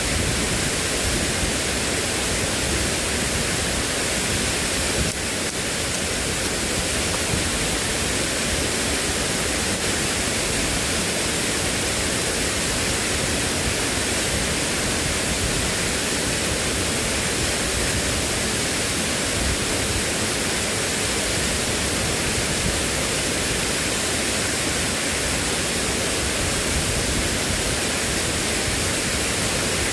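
Steady, unbroken rushing water noise, even across all pitches with no distinct events.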